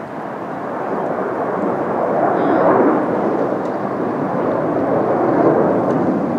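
Jet noise from a formation of four U.S. Navy F/A-18 Hornets passing overhead. It is a steady, loud noise that swells slightly about two seconds in.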